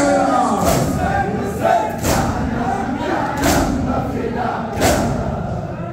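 A large crowd of mourners performing matam, striking their chests in unison about once every second and a half, with many men's voices chanting between the strikes.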